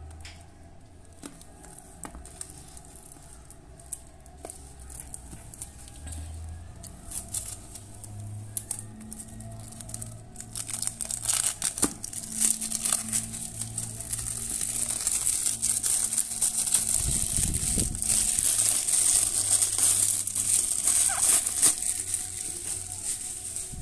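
Clear plastic cellophane wrapping on a cigarette carton crinkling and crackling as it is handled and torn off. It turns much louder and denser about halfway through.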